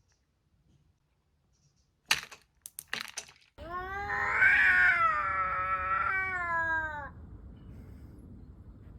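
A cat yowling: one long drawn-out wail of about three and a half seconds, wavering in pitch, preceded a second or so earlier by a few sharp knocks.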